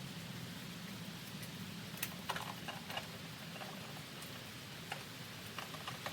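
Scattered light clicks and taps of hands handling the smoker's wiring and small parts during reassembly, over a steady low hum.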